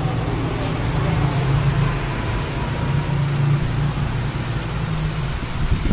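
A steady low mechanical hum with a background hiss, like a motor or fan running.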